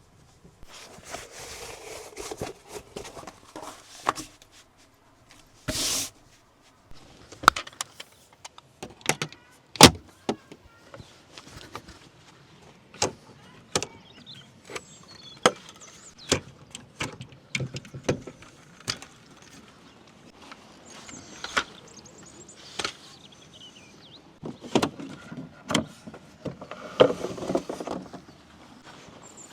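Irregular knocks, clicks and clatter of things being handled and set down around a motorhome, with a brief hiss-like burst about six seconds in and scraping and rustling near the end.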